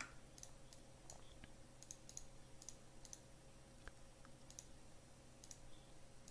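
Faint, scattered clicks of a computer mouse and keyboard, about a dozen over several seconds, some in quick pairs, over quiet room tone.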